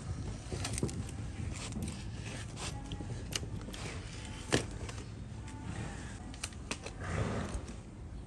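Scattered knocks, clicks and scrapes on a donkey's hooves during handling for hoof trimming, with one sharp knock about halfway and a short scraping stretch near the end.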